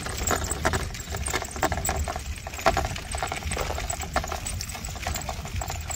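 Stroller wheels rolling over a dirt and gravel path, giving a rapid, irregular crunching and clicking, over a low rumble of wind on the microphone.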